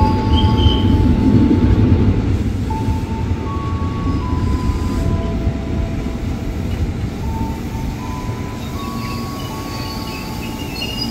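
JR 205 series electric commuter train rolling into the platform and slowing, with a steady rumble of wheels and motors that gradually eases off. Thin high tones come and go over it, changing pitch in steps.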